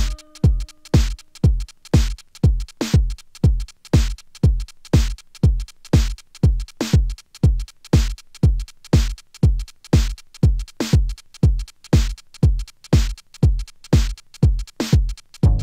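Drum-machine breakdown of an electronic dance track: a kick drum about twice a second with lighter percussion between, the bass and chords dropping out at the start and coming back in right at the end.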